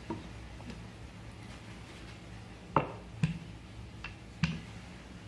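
Wooden rolling pin rolling out pie dough on a floured wooden counter, giving about five light knocks and clicks, the loudest about halfway through, over a faint steady hum.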